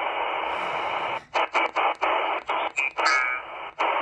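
XHDATA D-808 shortwave receiver in upper sideband on the 20 m ham band, its speaker giving steady hiss. About a second in, the hiss chops into short bursts and dropouts as the receiver is tuned up the band, the receiver muting on each tuning step, with a brief garbled tone of a passing signal near three seconds.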